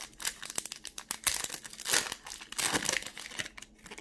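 Pokémon booster pack's foil wrapper crinkling and tearing as it is ripped open by hand: a run of sharp crackles with several louder rips.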